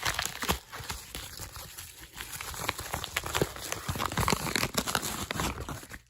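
Packaging being crinkled, rustled and torn by hand while a phone is unwrapped, with many small irregular clicks and crackles. It cuts off suddenly at the very end.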